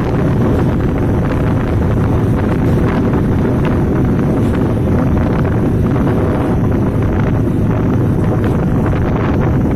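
Steady wind buffeting the microphone at the window of a moving passenger train, over the train's running noise.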